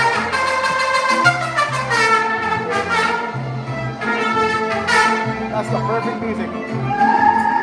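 Live mariachi band playing, trumpets carrying the melody over a steady strummed rhythm and a pulsing bass line.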